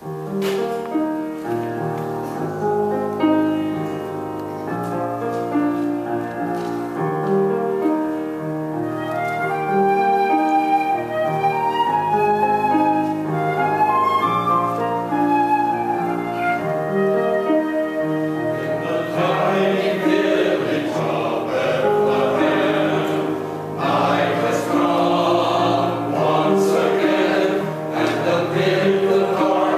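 Church choir anthem opening: an instrumental introduction with a flute melody over sustained accompanying chords, then the choir comes in singing about two-thirds of the way through.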